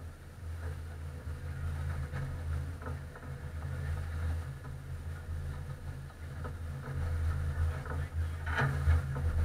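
Race car engine idling, a steady low rumble heard from inside the car, with a short louder noise near the end.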